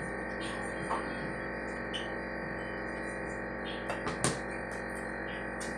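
Background instrumental music with steady held notes, with a few short clicks over it, the sharpest about four seconds in.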